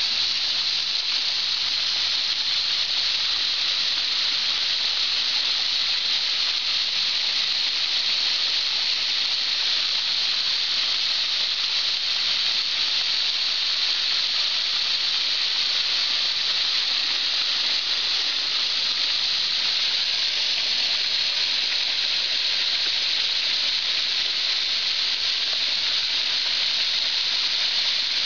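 Garden hose spray nozzle shooting a jet of water into a shallow plastic wading pool, a steady, even hiss of spraying water churning the pool's surface.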